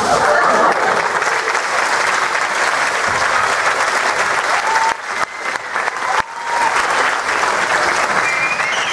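Theatre audience applauding, the clapping steady and loud with two brief dips about five and six seconds in.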